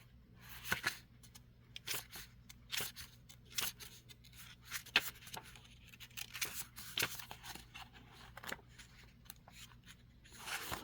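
Pages of a paperback guidebook being leafed through and handled: irregular soft rustles and sharp little paper clicks, faint, across the whole stretch.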